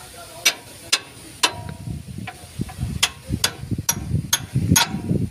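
Sharp metal-on-metal clicks and clinks, roughly two a second, a few ringing briefly, over a low uneven rumble of handling noise.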